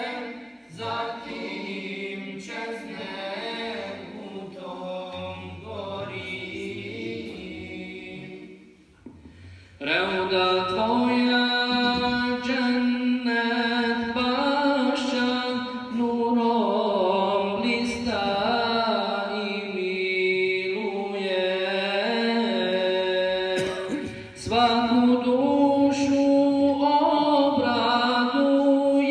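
Unaccompanied male singing of a slow, drawn-out Islamic religious chant, with long held, ornamented notes. A softer passage breaks off about eight seconds in. A louder, stronger line starts about ten seconds in, with a brief break just before the end.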